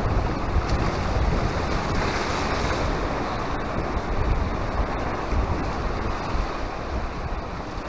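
Small sea waves washing onto a stony shore, with wind buffeting the microphone in a steady low rumble.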